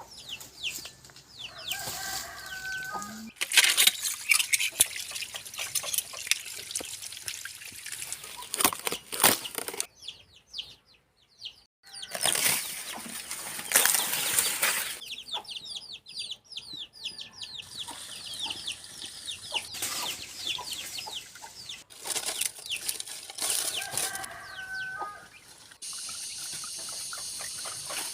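Chickens clucking and birds chirping over stretches of broad rushing noise, with several abrupt cuts between shots.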